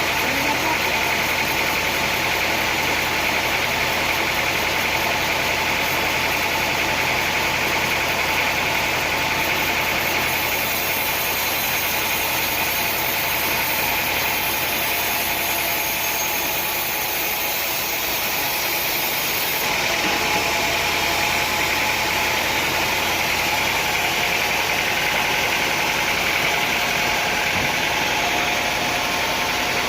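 Sawmill machinery running steadily, a continuous mechanical drone without distinct strikes or changes in pitch.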